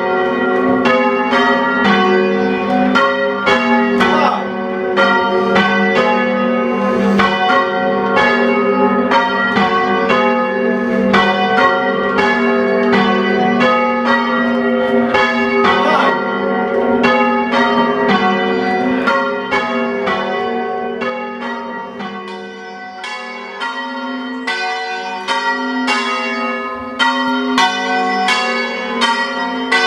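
Church bells change ringing: a small ring of bells struck one after another in changing order, about two strikes a second, each bell ringing on over the next.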